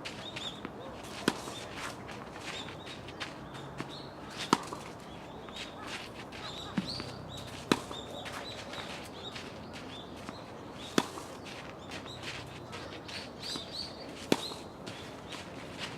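Tennis balls being struck with rackets in a feeding drill, a sharp hit about every three seconds with fainter ball knocks between them. Small birds chirp throughout.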